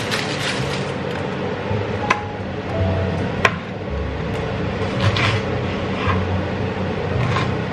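Chef's knife knocking on a wooden chopping board while slicing a red chilli: a few sharp, separate knocks over a steady hiss.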